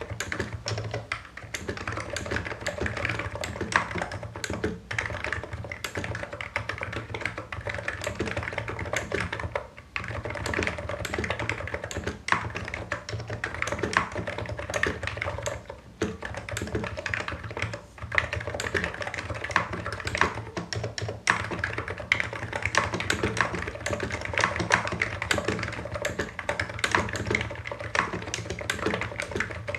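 Continuous fast typing on a Hansung Office Master full-size electro-capacitive (Topre-style) keyboard with low cherry-profile keycaps: rapid, dense key strokes with brief pauses about ten, sixteen and eighteen seconds in, over a steady low hum.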